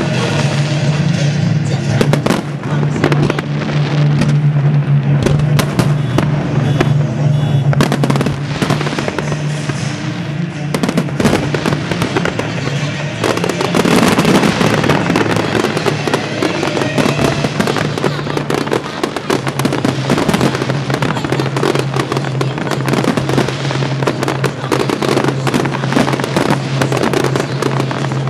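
Aerial fireworks shells bursting one after another with bangs and crackling. A much denser barrage of bursts starts about halfway through.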